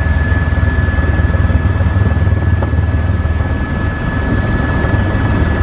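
Helicopter in flight: a loud, steady drone of rotor and engine, with a steady high-pitched whine above it.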